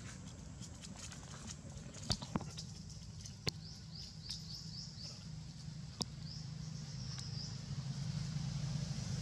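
Short, high chirping calls repeated in quick runs, with a few sharp clicks, the loudest at about two and three and a half seconds in. A low rumble grows louder near the end.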